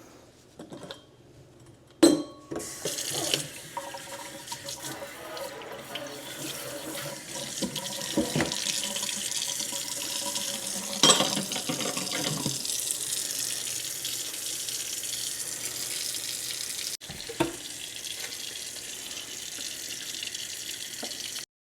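Kitchen tap running into a sink, filling it with cold water to thaw a frozen brisket. A loud knock comes about two seconds in, then a steady rush of water with a few knocks along the way, and it cuts off suddenly near the end.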